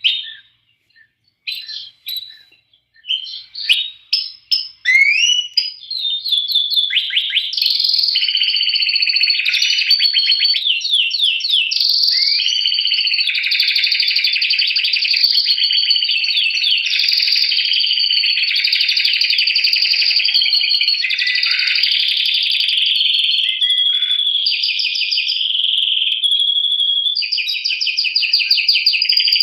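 Domestic canary singing: scattered chirps and short trills for the first several seconds, then a long unbroken song of rapid trills and rolling phrases.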